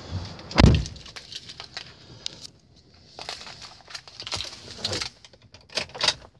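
A single heavy thump about half a second in, then scattered light clicks and rustling from handling inside a pickup truck's cab.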